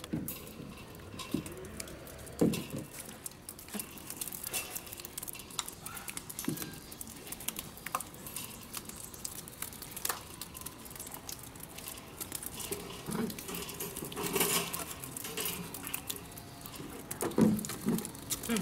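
Flock of Humboldt penguins crowding and shuffling on hard ground: a busy patter of small taps and clicks, with a few short low calls scattered through.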